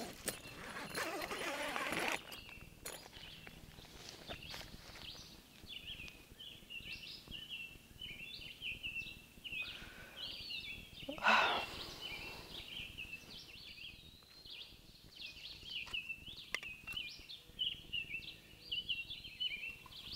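A tent door zipper pulled open during the first two seconds, then morning birdsong: many short, quick chirping phrases that go on to the end, with one brief louder burst about eleven seconds in.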